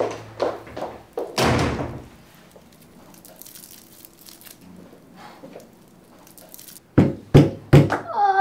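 Three heavy thuds in quick succession near the end, after a few quiet seconds, with a short rushing noise about a second and a half in. A low, wavering moan-like hum starts at the very end.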